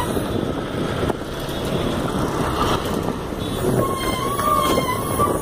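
Road traffic noise heard from a moving vehicle: a steady rush of engine and tyre noise from passing cars and trucks.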